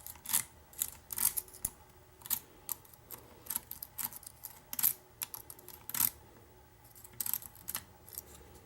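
Lock picks and a tension wrench working in the keyway of a Medeco mortise cylinder: irregular small metallic clicks and scrapes, a few each second, with short pauses between.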